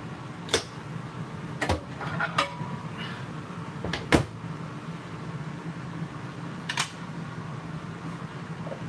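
Microwave oven door being handled: a handful of sharp clicks and clunks, the loudest about four seconds in, over a steady low hum.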